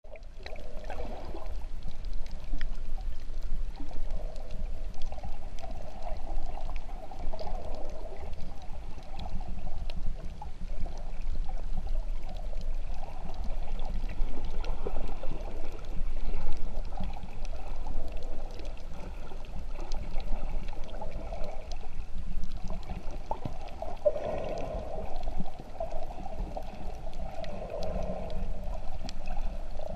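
Muffled water noise heard underwater: a steady low rumble with gurgling and sloshing that swells and fades, and faint scattered clicks.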